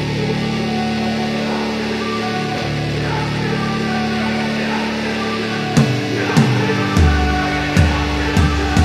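Background music: sustained guitar chords, with a steady drum beat coming in about six seconds in.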